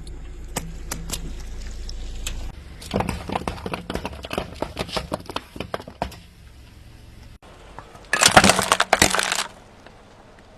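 Objects cracking and crunching as they are crushed: a few scattered snaps, then a run of crackling, then a short, loud burst of crunching near the end.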